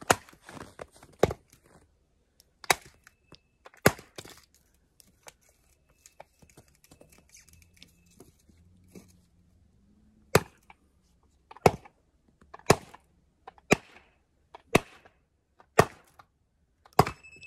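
Kindling being split on a wooden chopping block: about a dozen sharp chops into wood, roughly one a second, with a pause of several seconds midway.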